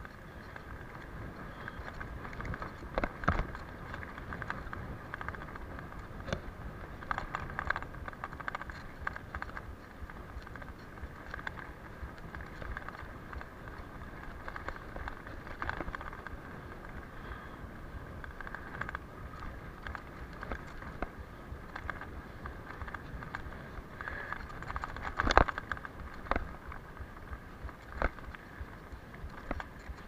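Mountain bike ridden fast over a bumpy dirt track: a steady rumble of tyres and wind on the microphone, with the bike rattling and knocking sharply over bumps. The loudest knock comes late on.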